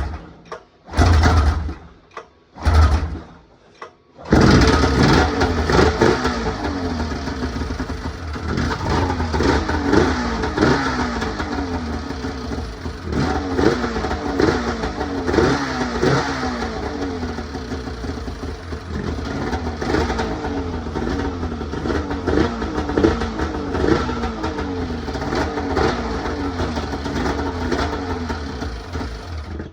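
Two-stroke Polaris snowmobile engine being pull-started: a few short cranking pulls, then it catches about four seconds in and keeps running, revved up and down again and again. It is the engine's first cold start after a rebuild.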